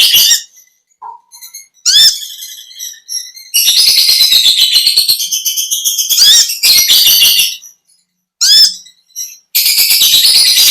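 Konin lovebird's long 'ngekek' chatter: dense, high, rapid trilled bursts. There are several longer stretches, with sharp rising chirps between them and short silent gaps.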